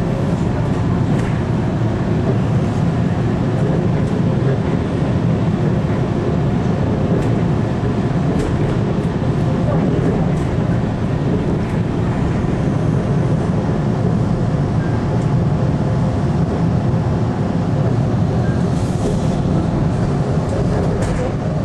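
Toronto subway train running, a steady low rumble heard from inside the car, with a few faint clicks.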